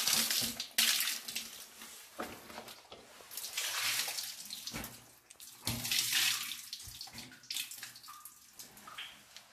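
Water pouring out of a tipped-up rubber wellington boot and splashing onto the rock floor, in several gushes of about a second each.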